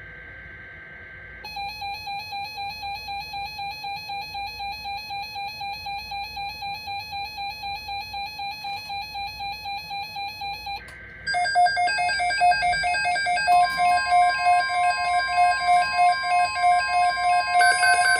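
Emergency alert tones from a weather radio. A screechy data burst ends about a second and a half in and gives way to an electronic alarm beeping about four times a second. After a second short data burst near eleven seconds, a louder beeping alarm starts, and a steady alert tone joins it a couple of seconds later.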